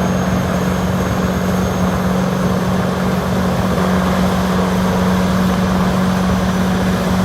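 Engine of a CBI 6800 BT wood grinder running steadily under load as a palm tree is fed in: a loud, even drone.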